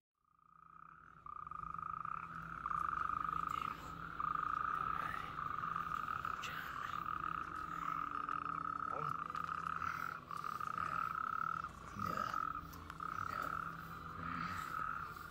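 Chorus of frogs calling: a steady, slightly stuttering high trill that fades in out of silence in the first second, with a few faint knocks and rustles over it.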